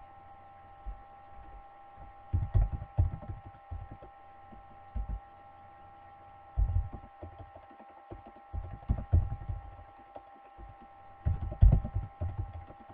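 Typing on a computer keyboard: several quick runs of muffled keystrokes with pauses between them, over a steady electrical hum.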